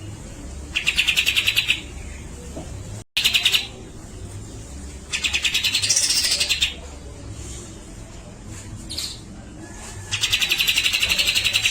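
Grey-cheeked bulbul (cucak jenggot) singing in four bursts of rapid, stuttering trills, each about a second or more long, the third one rising in pitch near its end.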